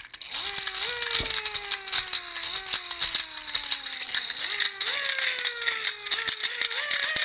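Small hand-cranked Japanese bicycle siren being cranked in uneven strokes. Its whining tone jumps up with each push and sags between pushes, rising overall near the end, over a fast metallic rattle from the mechanism.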